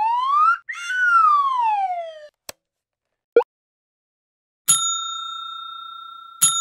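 Cartoon sound effects: a slide-whistle tone rises and then falls back over about two seconds, followed by a click and a short blip. A bell is then struck twice, about a second and a half apart, each strike ringing on with a steady tone.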